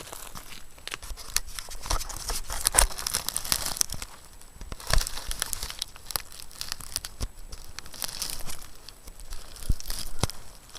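Dry crunching and crinkling rustle, irregular, with many short sharp clicks; the loudest knocks come a few seconds in and again about five seconds in.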